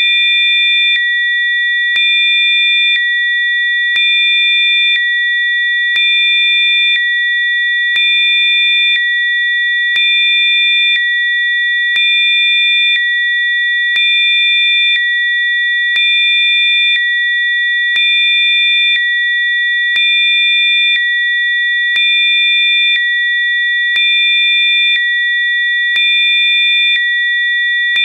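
Electronically generated Rife-frequency sine tones. Several steady high pitches are held together, while a lower pair of tones switches on and off every second, with a faint click at each change.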